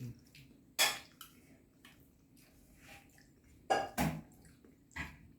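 Cutlery clinking against a plate a few times while eating spaghetti: four sharp clicks spread over several seconds, the first and the middle pair loudest.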